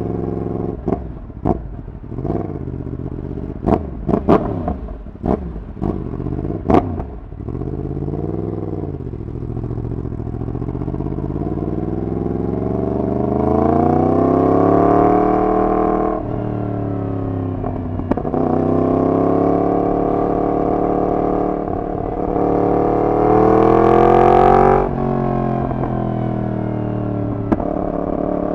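Yamaha MT-10's crossplane inline-four running through a de-catted full exhaust system. A run of sharp pops comes in the first seven seconds, then the engine note rises in a long pull, drops about halfway and rises again, before it falls away suddenly near the end as the throttle closes.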